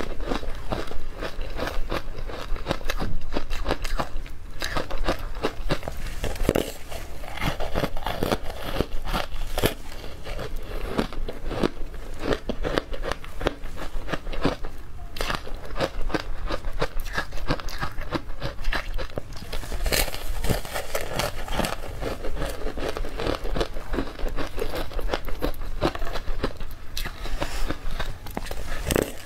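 Powdery ice coated in matcha powder being bitten and chewed: a dense, unbroken run of crisp crunches and crackles.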